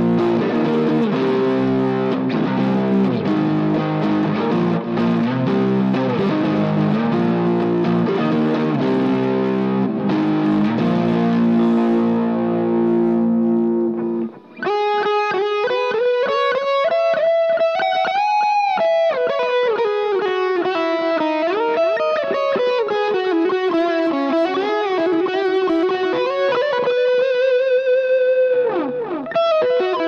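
Electric guitar played through a Cuvave Cube Baby multi-effects pedal on its high-gain distortion setting. Dense distorted chord riffing gives way about halfway, after a short break, to a single-note lead line with string bends and vibrato.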